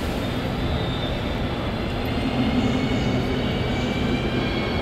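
ODEG double-deck electric regional train at a station platform: a steady rumble with high, thin electric whining tones from its traction equipment, one coming in just after the start and another about three seconds in.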